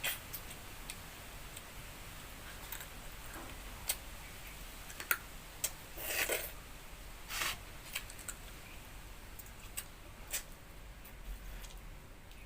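Sounds of a person eating: scattered light clicks and taps, with a few brief louder noises about six and seven seconds in.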